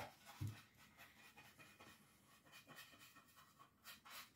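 Faint scratchy scrubbing of a small brush working dark brown wax into a bare wooden board, short strokes one after another, busier near the end. A soft knock about half a second in.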